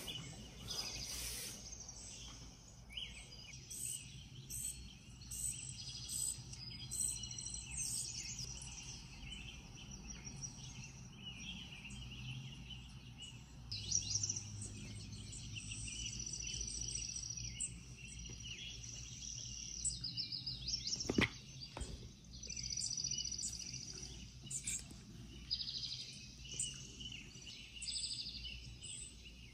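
Recorded forest birdsong playing from a tablet's speaker: many short chirps and rapid trills. There is a single sharp tap about two-thirds of the way through.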